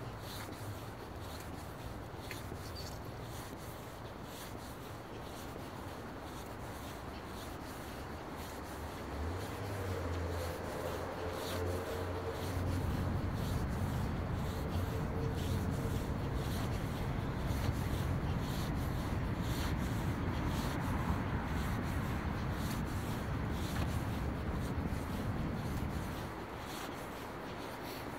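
Handling and rubbing noise on a hand-held phone microphone while walking on asphalt, with faint steps, over a low outdoor rumble that grows louder about halfway through and drops back near the end.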